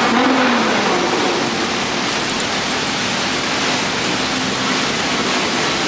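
Steady, loud street noise of traffic and a crowd, with a car engine's note audible and slightly falling in the first second.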